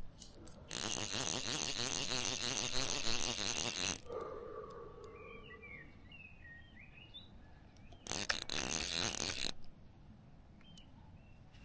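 Fishing reel ratcheting in two bursts, the first about three seconds long and the second about a second and a half, with birds chirping in the quieter gap between them.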